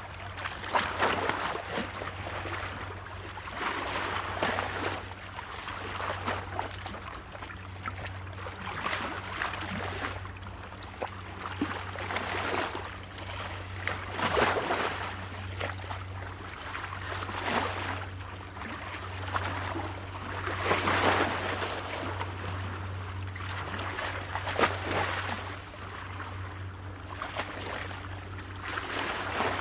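Small waves splashing against rocks, surging and washing back every few seconds in irregular bursts, over a steady low hum.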